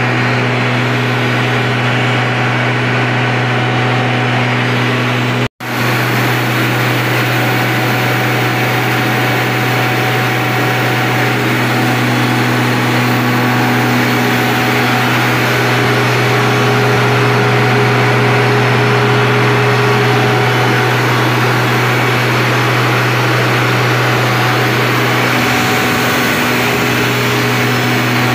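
Greaves Cotton 500 kVA 12-cylinder diesel generator set running at steady speed: a loud, unbroken engine drone over a deep steady hum. The sound breaks off for an instant about five and a half seconds in.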